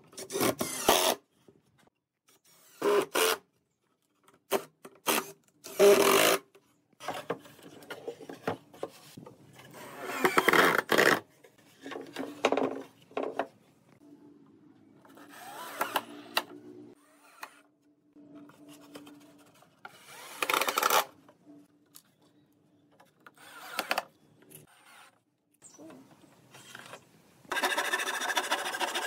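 Cordless drill running in repeated short bursts as it bores into wooden boards. Near the end a handsaw starts cutting through a board in steady strokes.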